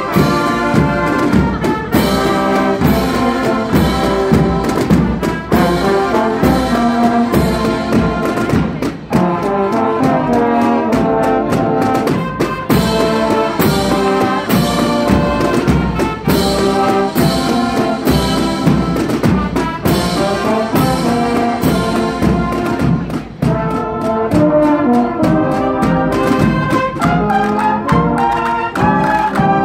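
Brass band playing a tune together: trumpets, trombones and baritone horns over a steady beat.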